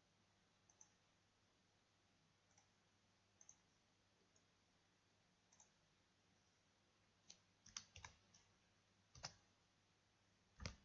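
Faint, sparse clicks of a computer mouse and keyboard keys, with a quick run of louder clicks about seven to eight seconds in and two more single clicks near the end.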